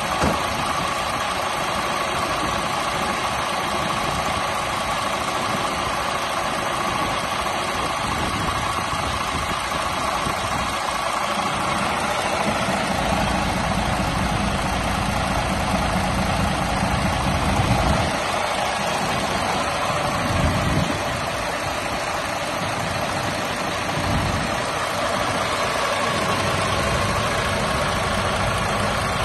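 Rear-mounted diesel engine of a VDL Futura 129-370 coach idling steadily, with a steady whine over the running. A deeper rumble swells for a few seconds in the middle.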